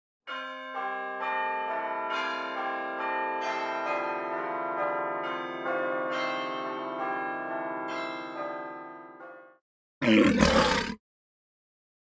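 Bell-like chime tones struck one after another, overlapping and ringing on, fading out about nine and a half seconds in. Then comes a loud, rough burst lasting about a second.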